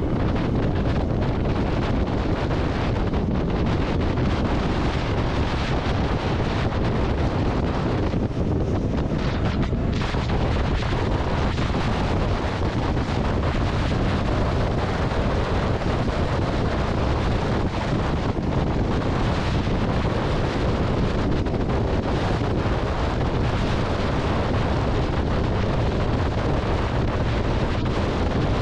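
Steady wind rush on the microphone of a motorcycle riding at road speed, with the bike's running engine and road noise underneath.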